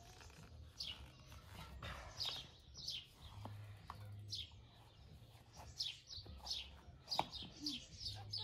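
Small birds chirping, with repeated short notes that sweep downward, coming in quick runs. A few sharp clicks cut across them, the loudest about seven seconds in.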